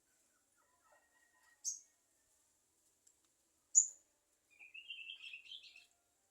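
Javan myna (jalak kebo) calling: two short, sharp high notes about two seconds apart, the second the loudest, then a chattering warble that climbs in pitch for about a second near the end.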